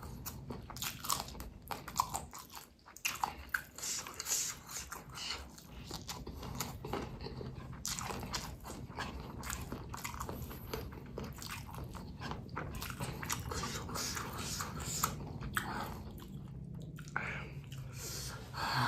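Close-miked biting and chewing of raw cabai gendot chilies, a steady run of short crisp crunches.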